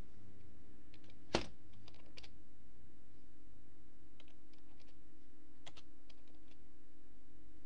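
Computer keyboard being typed on slowly and one-handed: scattered, irregular key clicks, with one much louder keystroke about a second and a half in. A steady low hum runs underneath.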